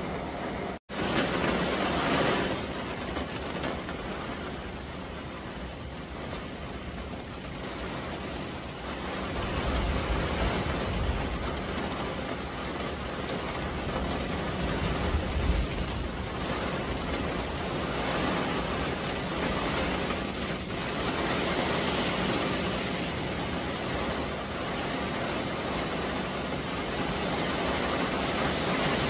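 Heavy rain pouring onto a car's roof and windows, heard from inside the cabin as a steady, dense hiss. The sound cuts out for an instant about a second in, and a deeper rumble swells around ten and fifteen seconds in.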